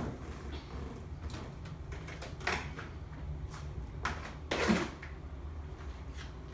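Rummaging for a laptop power adapter: scattered handling clatter and rustling, with two louder scrapes about two and a half and four and a half seconds in, over a steady low hum.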